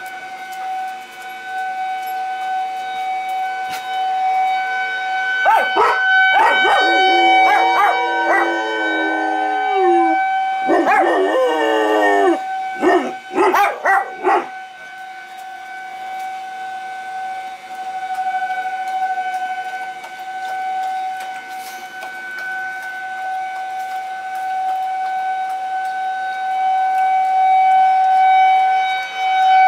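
Tornado warning siren holding one steady tone that slowly swells and fades. A white German Shepherd howls along with it from about five seconds in, then yips and gives short barks until about fourteen seconds in.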